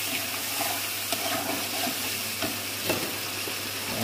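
Tomato masala sizzling and frying in a black kadai, with a steel ladle stirring it and clicking against the pan a few times.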